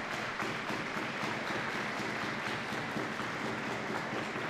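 Spectators applauding steadily, many hands clapping at once.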